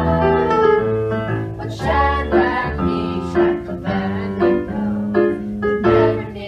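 A group of children singing a song together with instrumental accompaniment, holding sustained notes.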